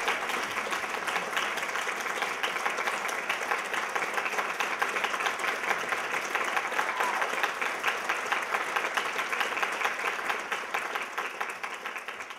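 Audience applauding, many hands clapping at once, growing fainter near the end.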